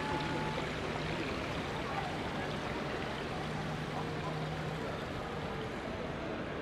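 Steady crowd babble: many people talking at once in an indistinct wash of voices.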